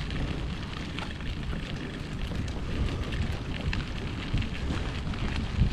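Strong wind buffeting the microphone, an uneven low rumble with a few scattered light ticks.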